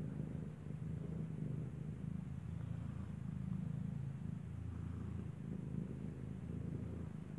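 Mother cat purring steadily, a continuous low rumble, while her newborn kitten nurses.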